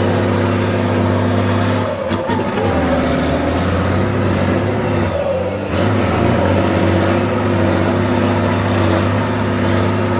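Heavy off-road trial truck's diesel engine running hard under load, its revs dropping and picking up again about two seconds in and again just under six seconds in.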